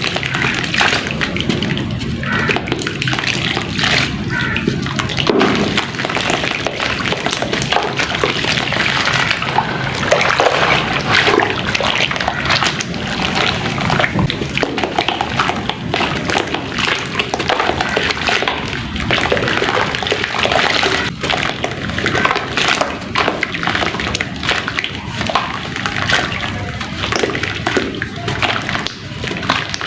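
Soft sand-and-cement mix being dipped and crumbled in water: continuous sloshing and splashing, with many small crackles.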